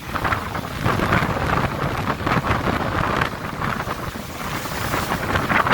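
Sea waves breaking and washing in, a continuous hiss and rush that swells and eases, with wind buffeting the microphone.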